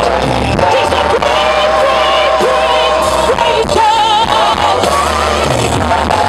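Live gospel worship music: a female lead singer holding long notes, with a wavering vibrato note about four seconds in, over a band of electric guitars, bass and drums, with backing singers.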